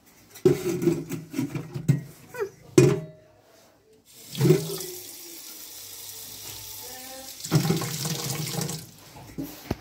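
A water tap running. It comes on suddenly about four seconds in, runs steadily for about five seconds and is shut off near the end. Before it there are some short knocks of handling.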